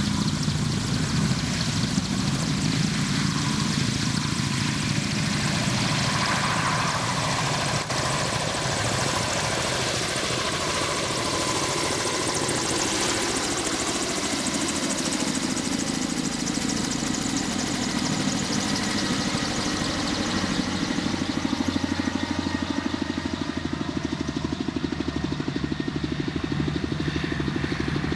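Kamov Ka-32T coaxial-rotor helicopter lifting off and flying: a fast, steady rotor beat over the high whine of its turboshaft engines. The whine thins out near the end as it climbs away.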